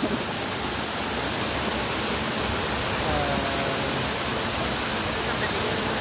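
Waterfall pouring down a rock face into a plunge pool, a steady, unbroken rush of falling water.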